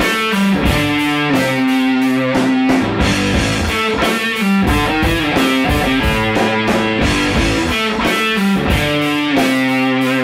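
Background music: a guitar-led rock song with a steady beat.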